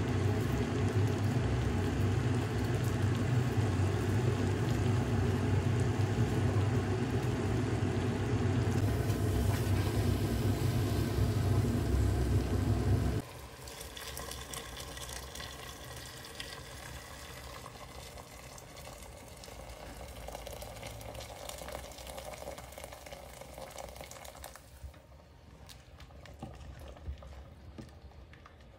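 A steady low rumble fills the first half and cuts off suddenly. Then water is poured into a pot of simmering tomato-onion base, and near the end a spoon stirs the soup against the metal pot.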